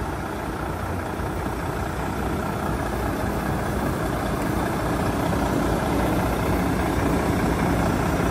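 Volvo FH truck's diesel engine idling steadily with a low, even hum.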